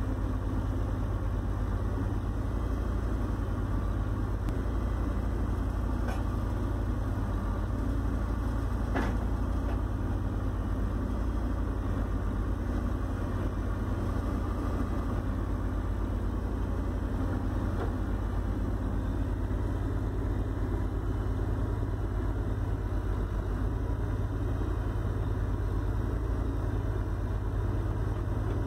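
Backhoe loader's diesel engine running steadily with a low rumble, a few faint clicks over it, the clearest about nine seconds in.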